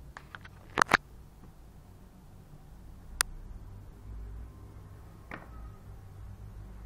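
Several sharp clicks over a low hum: two loud ones close together about a second in, a single sharp click a little after three seconds and a softer one around five seconds.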